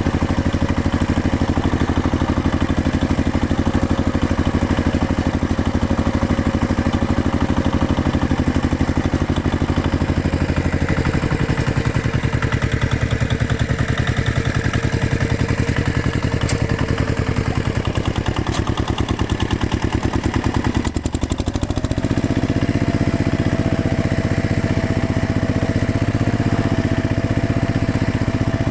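A heavy machine's engine running steadily under load, its note changing about eleven seconds in and again, after a brief dip, a little past twenty seconds.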